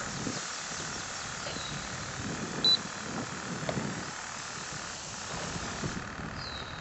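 Steady outdoor background noise, with soft footsteps on concrete. A single short, high beep comes about three seconds in, and a brief falling chirp comes near the end.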